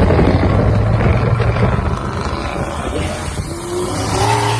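Off-road vehicle engine running loud and fairly steady, easing off a little about two seconds in.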